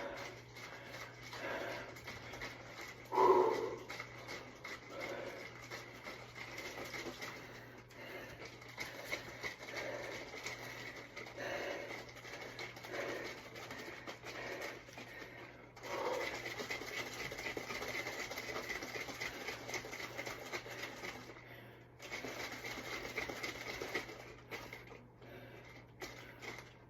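A person breathing hard and panting after exercise, about one breath a second, with one louder exhale about three seconds in. For several seconds after the midpoint, a steady rushing noise takes over.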